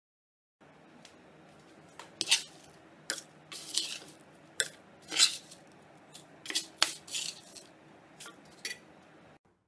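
A spatula scraping and knocking against a steel pan while stirring curry leaves and peanuts as they dry-roast: a dozen or so sharp, irregular scrapes and clinks over a low steady background.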